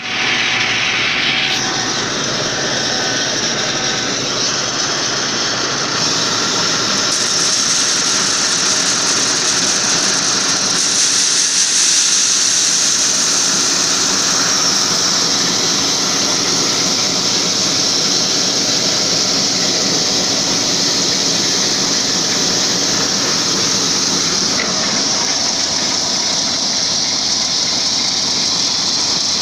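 John Deere 2056 combine harvester running while its unloading auger pours shelled corn into a grain trailer: steady, loud machine noise with kernels streaming onto the load.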